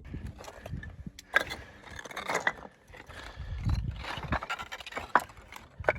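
Hiking boots crunching and scraping over loose rock, in irregular steps with sharp clicks of stone on stone.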